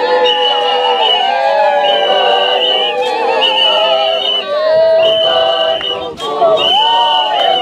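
A group of women singing a traditional Zulu song together without instruments. A high, steady note comes and goes about every second and a half.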